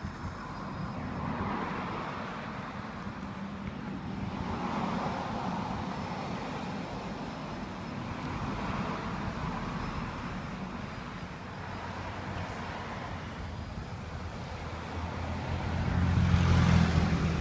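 Road traffic going by, swelling every few seconds as cars pass, with one louder vehicle passing close near the end.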